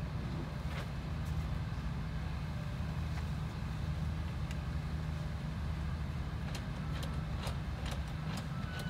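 A tractor engine idling with a steady low hum, with scattered sharp clicks and knocks of shovels working in earth, more frequent near the end.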